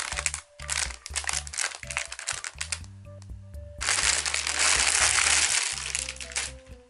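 Packaging crinkling and rustling in handled bursts, then a longer continuous rustle about four seconds in, over background music with a low bass line.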